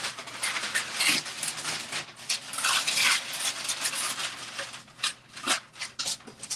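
Parchment paper rustling and crinkling in irregular bursts as it is handled and smoothed into place on a heat press.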